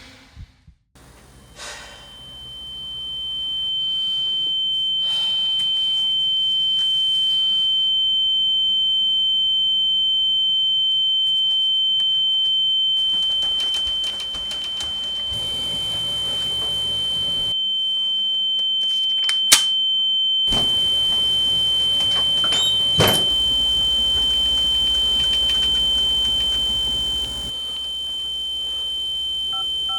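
A single continuous high-pitched tone that starts about two seconds in, swells over the next few seconds and then holds steady, with a couple of sharp clicks partway through.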